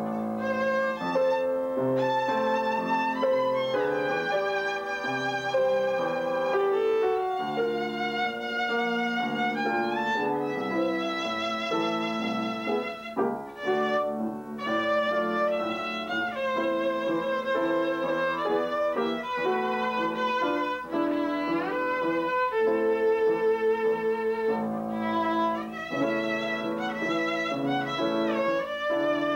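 Violin playing a melody with vibrato, accompanied by an upright piano.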